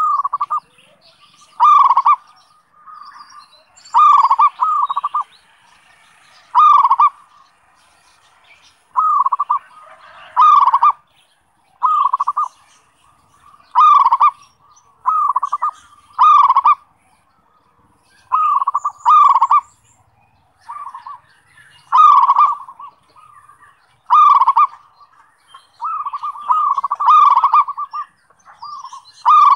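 Zebra dove (perkutut) cooing: short, rolling phrases repeated every second or two, some in quick pairs.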